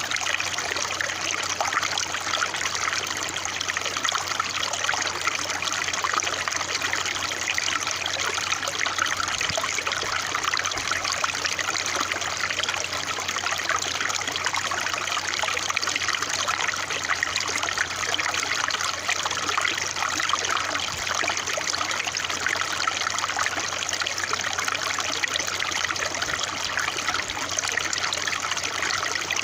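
Water trickling and babbling steadily, as in a small stream running over stones, with an even, unbroken flow.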